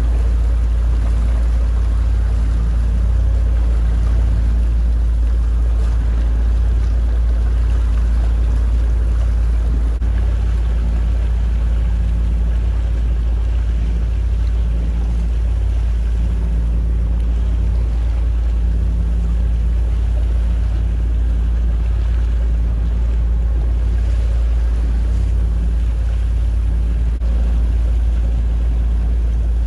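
Steady low rumble of a motorboat's engine running at low speed on the water, with the hiss of water alongside.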